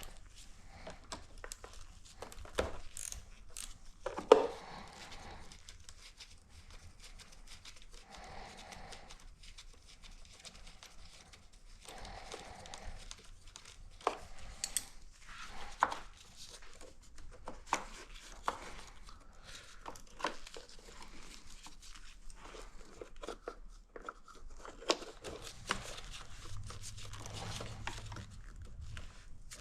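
Hands-on workshop noise: scattered clicks, knocks and rustling as parts of the motorcycle are being removed, with one sharp knock about four seconds in.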